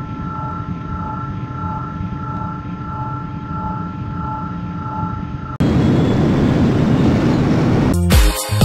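Sound effect of a spacecraft engine: a steady droning hum with two high, steady tones over it. About two-thirds of the way through it gives way to a much louder, even rushing roar like a rocket firing, and music with a beat comes in near the end.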